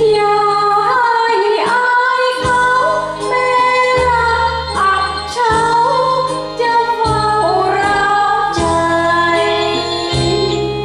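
A woman singing into a karaoke microphone over a keyboard backing track of held chords, her melody gliding between notes.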